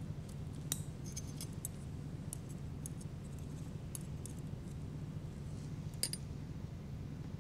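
Faint, irregular clicks of steel surgical instruments (needle holder and forceps) being handled during suturing, over a steady low hum.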